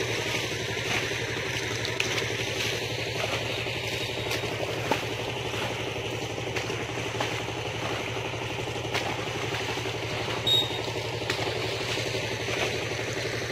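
Steady drone of an engine running evenly, with a few faint clicks scattered through it.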